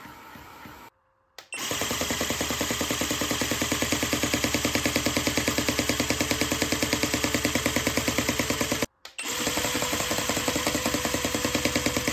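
Dancing hamster toy's motor and gearbox overdriven at 15 and then 18 volts, making a loud, fast, evenly repeating mechanical clatter with no music. There is a brief break about a second and a half in, and a second break near nine seconds, after which the clatter carries a steady tone.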